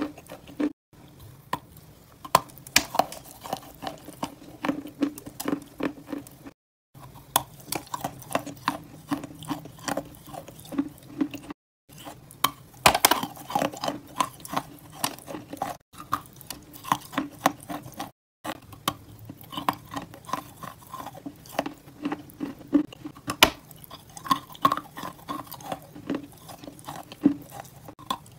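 Close-miked biting and chewing of a dense, crumbly dessert block: crisp crunching clicks and moist mouth sounds, with a louder bite about halfway through. Several brief gaps of silence break it up.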